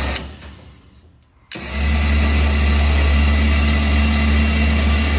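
Electric 5,000 lb winch motor, with its line doubled through a pulley, hoisting a vintage Dodge M37 wrecker boom. After a brief pause the winch switches on abruptly about a second and a half in and runs with a steady hum.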